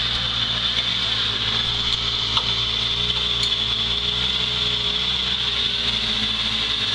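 Suzuki Samurai off-roader's engine running steadily at low revs as it crawls up a dirt bank, with a steady high hiss over it.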